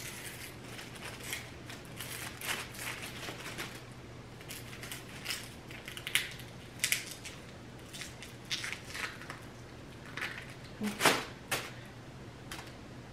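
Hands peeling the dry, papery skin off an onion: irregular crackles and crinkles with scattered clicks, and a louder knock about eleven seconds in.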